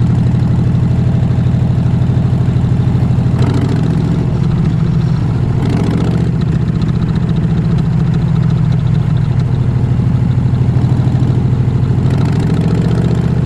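Harley-Davidson Fat Bob 114's Milwaukee-Eight V-twin running through a Vance & Hines full-system exhaust. It holds a steady, low, pulsing note with no revving, and there are two brief rushes of noise partway through.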